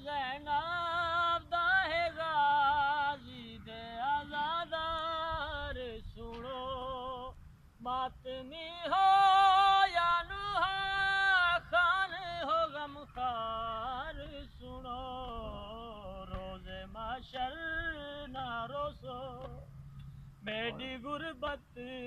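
A man reciting a Punjabi noha (lament) unaccompanied, in a high, wavering voice, in long phrases with brief pauses between them.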